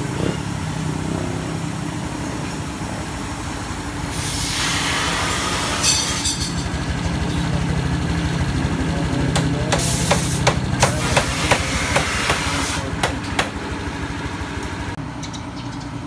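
An engine idling steadily, with a hiss from about four to six seconds in and a string of sharp clicks and knocks between about nine and thirteen seconds.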